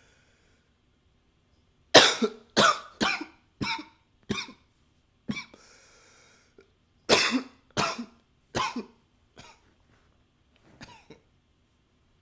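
A man coughing in two fits: about five hard coughs in quick succession starting about two seconds in, a breath drawn in, then about four more coughs, and a faint single cough near the end.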